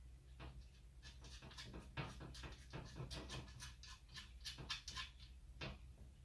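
Faint, irregular clicks and taps of steel server-rack rails and screws being handled and fitted by hand, over a steady low hum.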